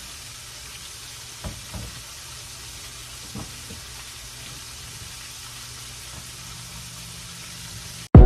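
Buttered slices of French bread frying in a skillet: a steady sizzling hiss, with a few soft knocks as the slices are turned over by hand. Right at the end it cuts off into a sudden loud start of music.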